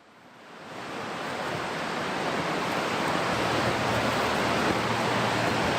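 Steady rush of flowing creek water. It fades up from near silence over the first second and a half, then holds steady.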